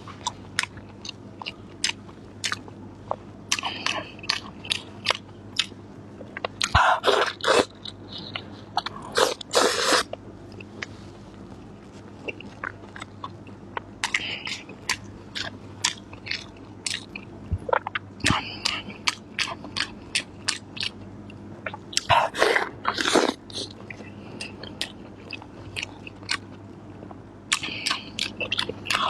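Close-up eating sounds of a pan-fried Beijing meat pie (门钉肉饼): a person biting and chewing with crisp clicking and crackling. Louder bursts of crunching bites come every few seconds between stretches of quieter chewing.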